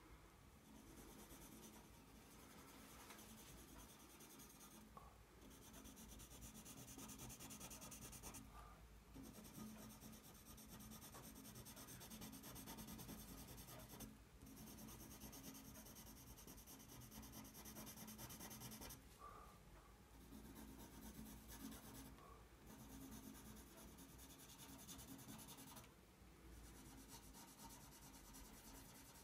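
Faint scratching of a Prismacolor Premier coloured pencil on drawing paper, with continuous shading strokes that stop briefly several times as the pencil lifts.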